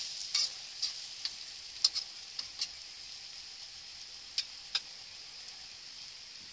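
Egg-dipped bread slices frying in melted margarine in a wok: a steady, fairly faint sizzle with scattered sharp pops and crackles from the spitting fat.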